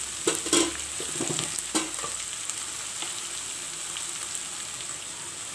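Sliced onions and green chillies sizzling in hot coconut oil in an aluminium kadai. A few spatula strokes knock and scrape against the pan in the first couple of seconds, then a steady sizzle.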